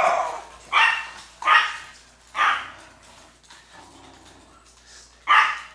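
A dog barking in play: three sharp barks in quick succession in the first few seconds, then one more near the end.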